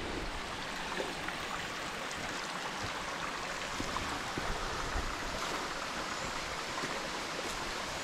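Forest stream flowing: a steady rush of water.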